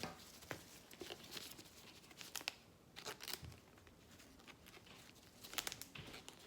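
Trading card packs and cards being handled: faint scattered crinkling and tearing of foil pack wrappers and cards sliding and tapping, in short rustles and clicks.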